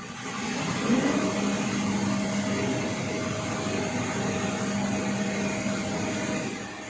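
A machine's motor running with a steady whirring hum and a fainter higher tone above it, coming up about a second in and dropping away near the end.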